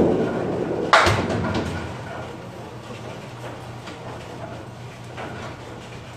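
Candlepin bowling: a ball thuds onto the wooden lane right at the start. About a second in comes a sharp clatter that rattles away over the next second, the pins being knocked down. Then the steady low hum of the lanes.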